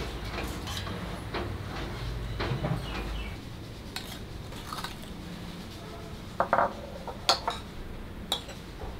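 A spoon clinking against small bowls and a metal pan as coloured agar jelly mixture is spooned out, with a few sharp clinks in the second half.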